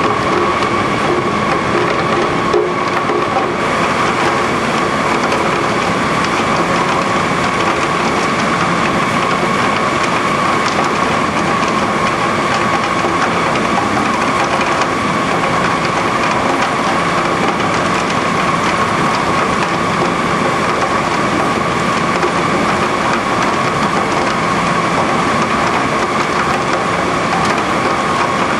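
Mango-processing line machinery running: a steady motor whine over continuous, dense clattering of the conveyor and rollers.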